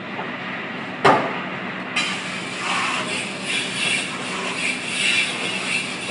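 Kitchen noise: a sharp knock about a second in, then a steady rushing noise that starts suddenly at about two seconds, over a low steady hum.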